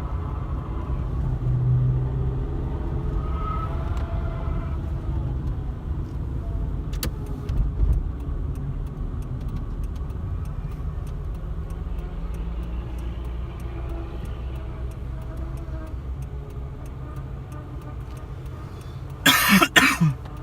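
Daewoo Lanos heard from inside the cabin while driving: the engine runs with a steady low hum that rises and falls slightly in pitch in the first few seconds, typical of a worn clutch release bearing that hums very strongly. A loud, short burst of noise comes near the end.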